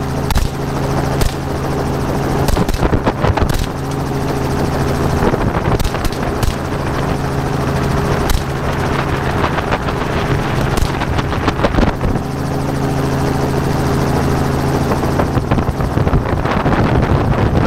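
Helicopter in flight, heard through an open door: a steady low, multi-toned rotor and engine drone under rushing wind on the microphone. Scattered sharp cracks come through over the drone.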